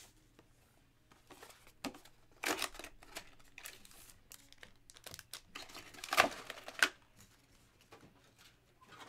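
A trading-card hobby box being torn open and its foil-wrapped pack pulled out, crinkling, in a few short bursts around two and a half seconds in and again, loudest, about six to seven seconds in.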